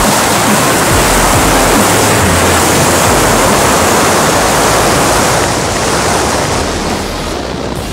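Loud wind rushing over the camera microphone during a tandem parachute descent to landing. It eases off a little in the last couple of seconds.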